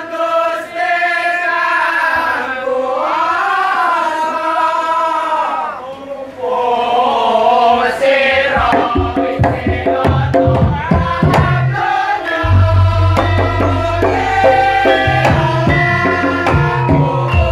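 Live Javanese devotional song: a singer holds long, wavering sung notes, then drums and the rest of the band come in about halfway through, with a heavy bass beat joining near the end.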